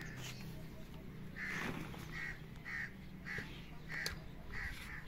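A crow cawing over and over, about seven short caws roughly half a second apart, with one sharp knock about four seconds in.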